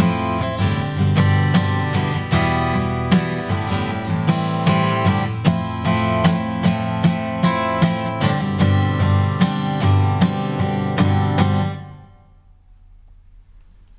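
Acoustic guitar strummed in a steady rhythm of chords, stopping near the end as the last chord dies away.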